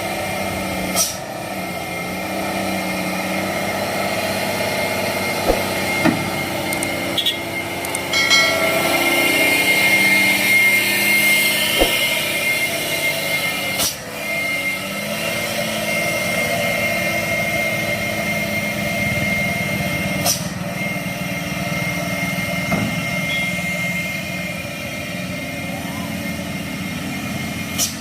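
Truck diesel engine running steadily, louder for a few seconds around the middle, with people's voices and a few sharp knocks.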